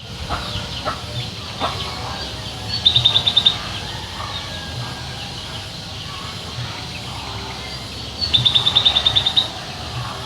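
A songbird calling: two rapid runs of high, evenly spaced chirps, one about 3 seconds in and a longer one near the end, with scattered fainter chirps between.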